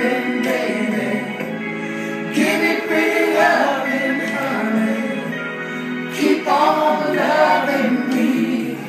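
A recorded song playing: singing voices over held chords.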